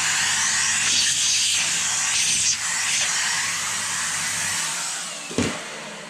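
Vacuum cleaner running steadily, its hose hoovering soap build-up out of the base of a washing machine. The vacuum is switched off about four and a half seconds in and runs down, followed by a single knock.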